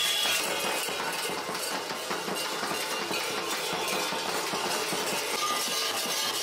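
Many large metal bells on Kukeri mummers' costumes clanking and jangling together without a break as the dancers move.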